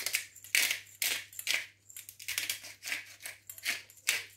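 Pepper grinder being twisted by hand: a quick series of short gritty grinds, about three a second.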